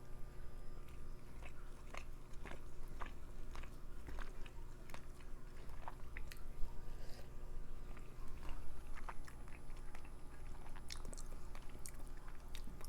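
Close-up chewing and mouth sounds of a person eating soft curry and chicken: a run of wet smacks and small clicks, irregular.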